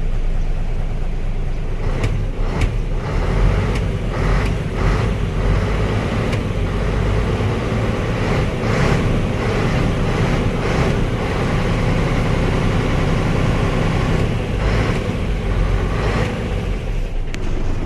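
Isuzu truck's diesel engine running steadily, started after a new battery relay cured its no-crank, no-start fault.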